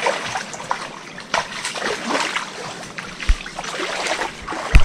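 Footsteps wading through shallow water, splashing irregularly with each step. A low thump comes about two-thirds of the way in, and a louder thump just before the end.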